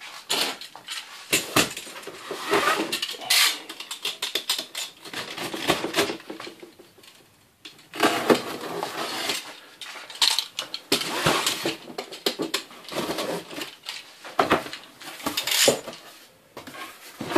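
A cardboard shipping box being slit open along its taped seam with a box cutter, then its flaps pulled and folded back: an irregular run of scrapes, clicks and cardboard rustling.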